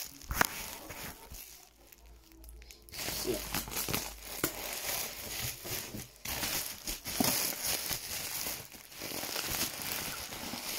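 Plastic bubble wrap crinkling and rustling as it is handled and unwrapped by hand, with a quieter lull between about one and three seconds in.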